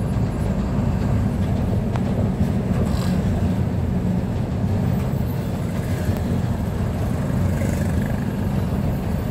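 Steady low rumble of a moving vehicle's engine and road noise, heard from inside the cabin while driving.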